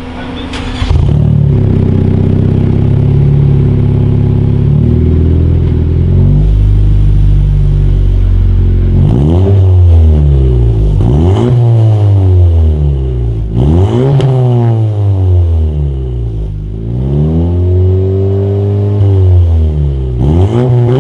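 Honda Civic Si's turbocharged 1.5-litre four-cylinder through a Full Race cat-back exhaust, idling and dropping slightly in pitch about six seconds in. From about nine seconds it is revved about five times, each rev rising and falling back to idle.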